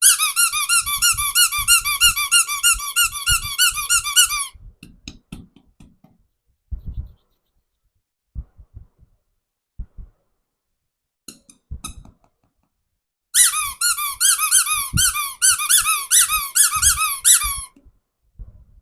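A squeaky toy squeaking rapidly, about five or six high-pitched squeaks a second, in two runs of about four seconds each. Soft knocks of handling come between the runs.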